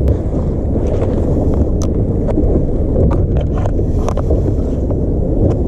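Loud, steady low rumble of wind buffeting the microphone on a small boat at sea, with a few light clicks and taps scattered through it.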